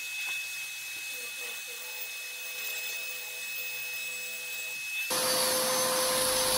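Faint steady tone and small knocks, then about five seconds in a hose-fed hand tool switches on abruptly and runs with a steady whine and hiss.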